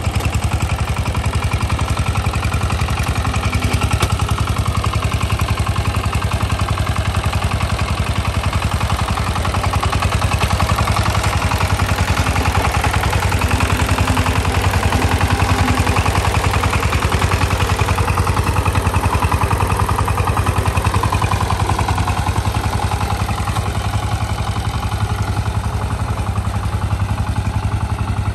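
Single-cylinder diesel engine of a two-wheel power tiller running steadily under load. The machine is bogged in knee-deep soft mud with its wheels spinning.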